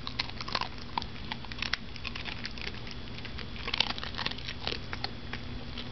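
Cavalier King Charles Spaniel chewing dry kibble: irregular crisp crunches and clicks, bunched more thickly about four seconds in.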